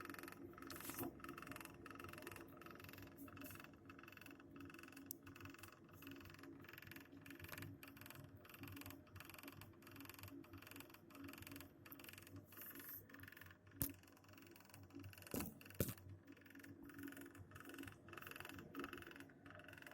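Circulation pump of a Navien Smart Tok 24K gas boiler running with a faint, rapid knocking, about three knocks a second over a steady hum, with a sharper click about two-thirds of the way through. The knocking is a fault in the new boiler's pump: it stops when the pump is switched off.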